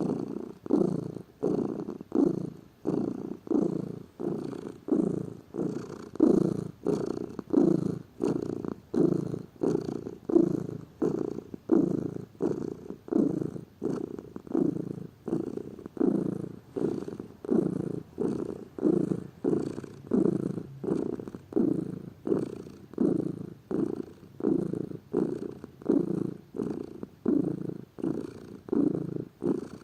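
Domestic cat purring in steady, even pulses that swell and fade about three times every two seconds.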